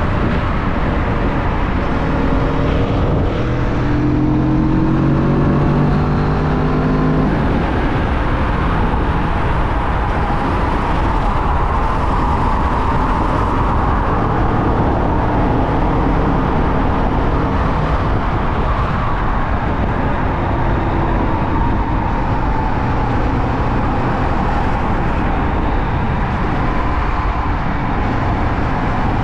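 Kawasaki Vulcan S 650's parallel-twin engine running at speed under a steady rush of wind and road noise. Its pitch rises over the first few seconds as it accelerates, then it holds a steady drone.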